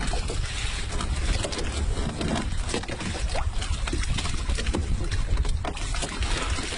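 Wind rumbling on the microphone aboard a small open boat at sea, with scattered knocks and bumps as a heavy catch is hauled over the side.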